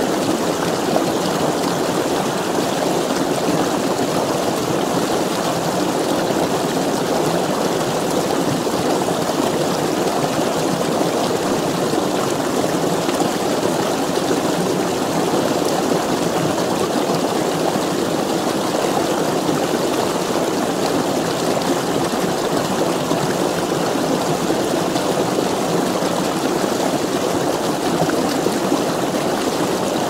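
Small spring snowmelt stream pouring over a low step into a pool: a steady rush and splash of water.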